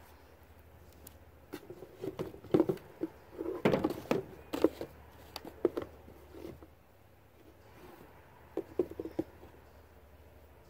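Paint pots and brushes being handled on a table while another colour is picked out: a string of small clicks, taps and knocks, most in the first half and a short cluster near the end.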